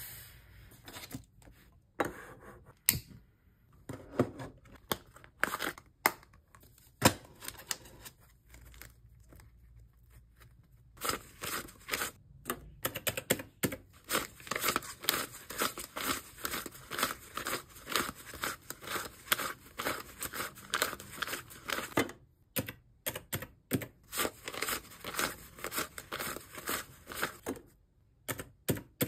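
Paper banknotes rustling and flicking as a stack of bills is counted by hand, in quick crisp strokes. Before that, a few separate sharp clicks and taps.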